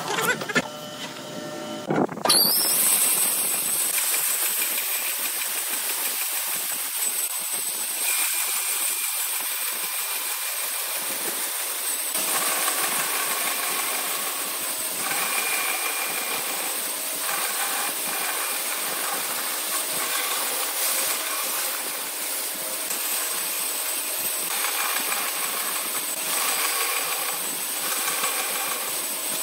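A hollow-chisel mortiser works briefly, then a bandsaw runs with a steady hiss as its blade cuts lengthwise through a wooden board.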